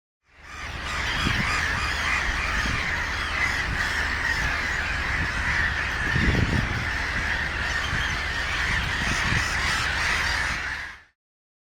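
A large flock of coastal birds calling all at once, a dense, continuous chatter of overlapping calls, with a low rumble of wind on the microphone underneath. It fades in at the start and stops shortly before the end.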